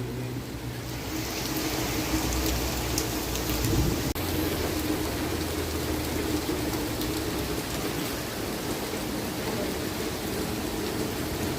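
Heavy rain pouring steadily during a thunderstorm, with a low rumble of thunder swelling around four seconds in.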